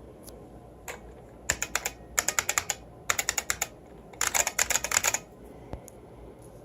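IBM Model F mechanical keyboard being typed on. Its buckling-spring keys give a single click, then four quick runs of sharp clicks with short pauses between.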